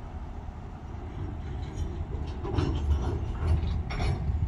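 A string of open-top hopper cars rolling slowly along the track: a low rumble, with a run of clicks and clanks from the wheels and couplings about halfway through.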